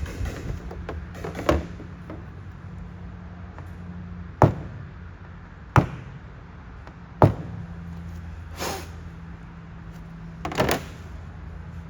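A few sharp knocks, three of them loud and about a second and a half apart, then softer ones, over a steady low hum.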